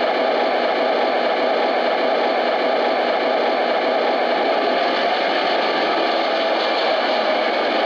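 O scale F59PHI model locomotive's onboard sound system playing a steady diesel engine sound through its small speaker, thin with no deep bass.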